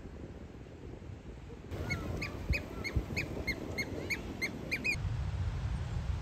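Sooty oystercatchers calling in flight: a quick run of short, high piping notes, about four a second. The run starts about two seconds in and stops abruptly about three seconds later.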